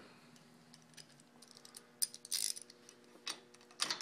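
A few light metallic clicks and a brief jangle from about halfway through: hand tools, a ratchet and socket, being picked up and handled.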